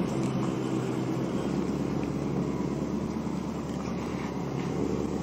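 Land Rover Defender V8's engine running steadily at low revs as the vehicle crawls over rocks.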